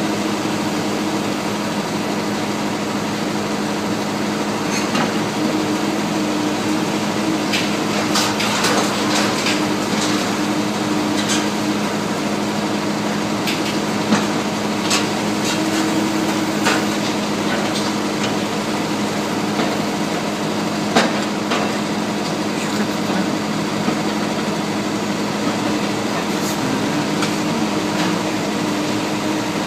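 Demolition excavators running with a steady diesel-and-hydraulic drone while their grapple jaws crush and tear at a building, giving scattered sharp cracks and clatters of breaking debris. The cracks come thickest in the first half, with one loud crack about two-thirds of the way through.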